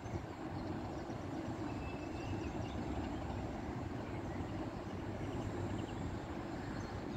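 Passenger train of coaches moving away down the line, a steady low rumble.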